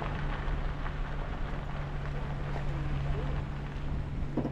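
Jeep running with a steady engine hum and road rumble, heard from inside the cabin.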